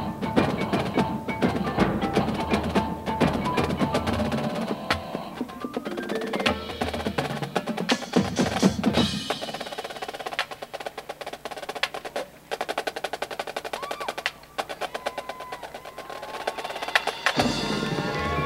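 A marching band drumline of snare, tenor and bass drums playing fast, dense rhythms. About halfway through the low, full sound drops away and the drums play on their own, and the full band comes back in near the end.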